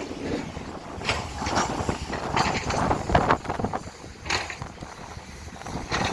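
Excavator at work, its engine running under irregular knocks and rushes, with wind buffeting the microphone.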